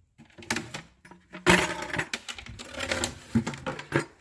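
Feed buckets being moved about and set down: a run of irregular knocks, clatters and rattles, the loudest about one and a half seconds in.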